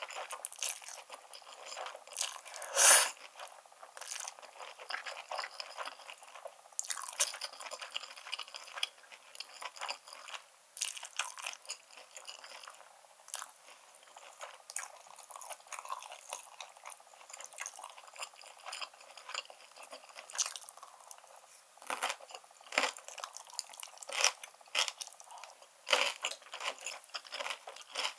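Close-miked eating sounds: wet chewing and crunching of black-bean noodles topped with seared beef and enoki mushrooms, with irregular mouth clicks and one louder crunch about three seconds in.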